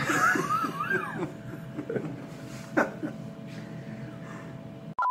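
Men stifling laughter: a high, wavering giggle in the first second, then quieter snickers and a short laugh a little before the three-second mark, over a faint steady hum. A steady beep tone starts right at the end.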